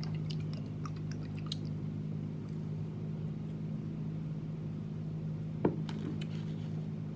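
Steady low hum in the room with light clicks and handling noise as a plastic hot sauce bottle is handled and its cap worked; one sharper click comes about five and a half seconds in.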